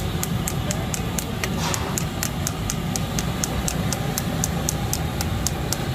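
Steady low rumble and hiss of chicken frying on a large gas-fired tawa, with a faint, fast, even ticking, about four or five ticks a second.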